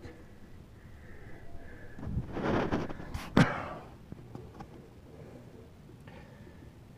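Handling and movement noise from someone shifting about in a cramped attic: a rustling swell about two seconds in, then a single sharp knock a moment later.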